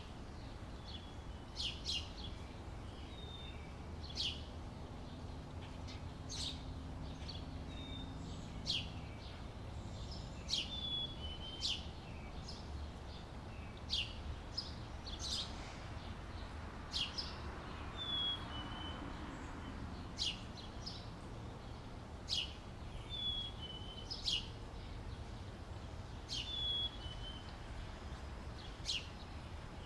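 Outdoor summer ambience: songbirds giving short, sharp chirps every second or two, some with a brief falling note, over a steady low background rumble.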